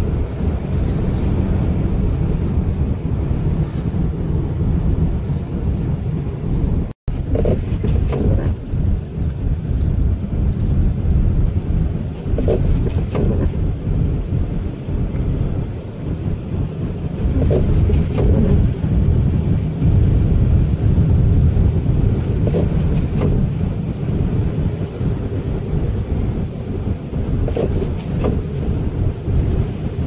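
Steady low rumble of a vehicle driving on a snow-covered road, mixed with wind noise. The sound cuts out for an instant about seven seconds in.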